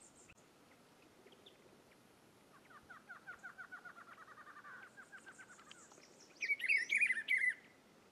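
Bird song: a fast, even trill for about three seconds, then a louder, rich warbled phrase near the end, the song of the rufous-browed peppershrike.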